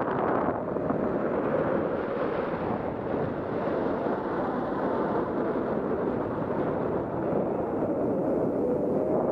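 Steady wind rushing over the microphone of a high-altitude balloon's payload camera as it climbs: a dull, even noise, heaviest in the low range, that loses some of its hiss about half a second in.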